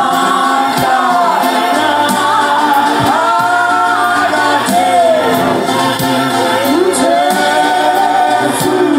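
A group of voices singing a gospel hymn together in harmony, with long held and gliding notes.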